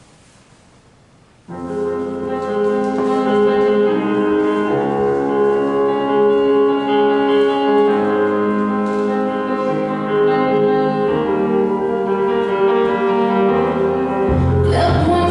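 Instrumental background music with long held notes, starting about a second and a half in after a quiet stretch; a deeper bass comes in near the end.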